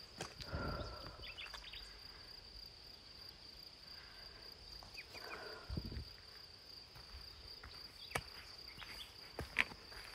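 A steady high-pitched insect buzz, with a few scattered footsteps and scuffs of a hiker's boots on a rocky dirt trail.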